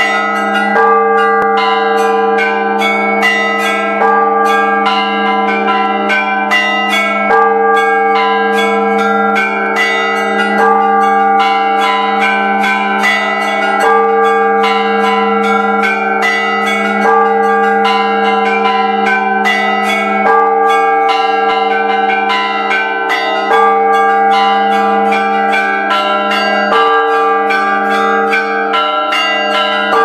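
Church bells ringing continuously: rapid, overlapping clapper strikes, several a second, over a steady low ringing hum that carries between strikes.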